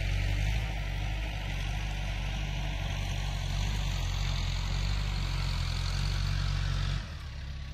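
Kubota M6040 tractor's diesel engine running steadily, with a hiss over it. It drops in level about seven seconds in.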